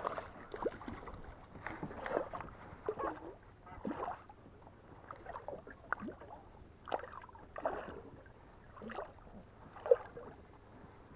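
Water lapping and slapping against the hull of a small motorboat, in irregular short splashes, with a louder one about ten seconds in.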